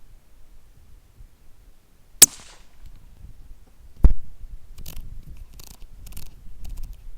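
A single shot from a Howa 1500 .223 rifle about two seconds in: a sharp crack with a short ringing tail. About two seconds later comes a loud, heavy low thump, followed by several faint clicks.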